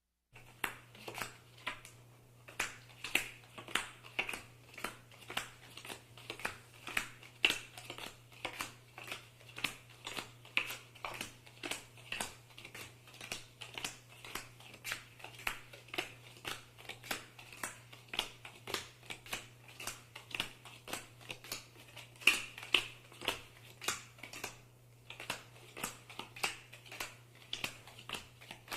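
Playing cards being dealt one after another, each card a short sharp snap or flick, about two to three a second at an even pace, with a brief pause near the end.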